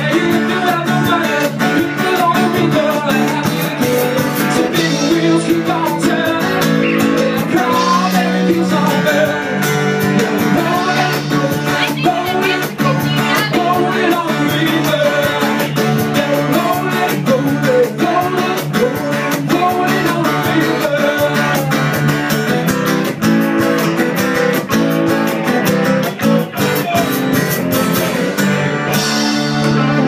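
Live band playing upbeat rock music, with guitar, a steady drum beat and a singer.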